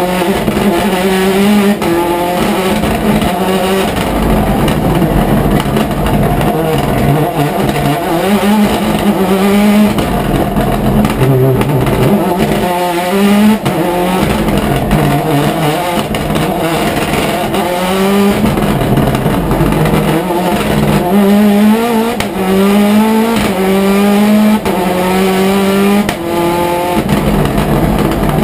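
Race car engine at full effort, heard from inside the stripped cockpit, its revs repeatedly climbing and then dropping back at gear changes as it drives up a winding hillclimb course.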